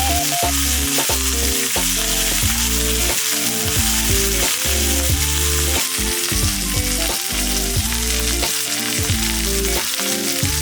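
Meat sizzling steadily in a hot frying pan, with background music playing.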